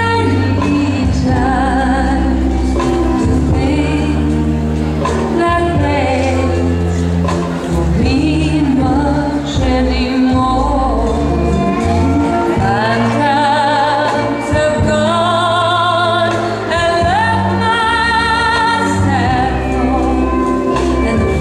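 A song playing: a singing voice with vibrato over steady instrumental backing and bass.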